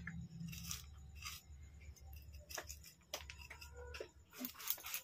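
Kitchen knife scraping the seeds and pith out of a halved raw green papaya: a series of short, faint scrapes and clicks, a few a second near the end, over a low hum.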